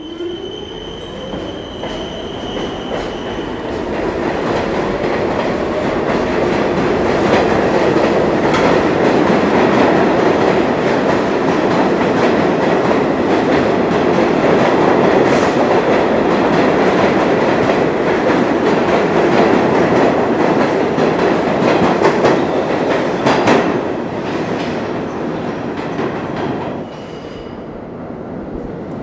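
New York City subway train running along the station platform, steel wheels clattering over the rail joints. A high wheel squeal sounds in the first few seconds and a few sharp knocks come near the end. The rumble builds over several seconds, holds loud, then falls away shortly before the end.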